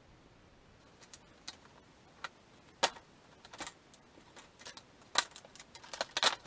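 Stiff clear plastic blister packaging crackling and snapping in irregular clicks as hands pull a pistol free of it. The loudest snaps come about three and five seconds in, with a quick run of them near the end.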